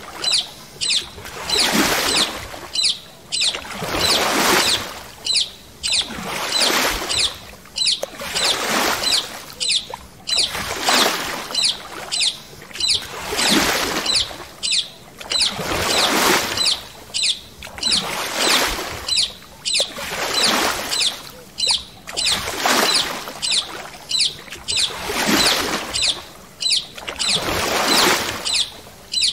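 Paddle-board paddle strokes through water: a splashing swish about every two seconds, steady and rhythmic.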